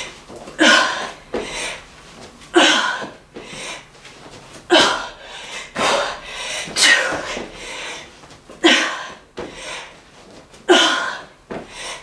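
A woman breathing hard from exertion during burpees: a sharp, voiced exhalation about every two seconds with quieter breaths between.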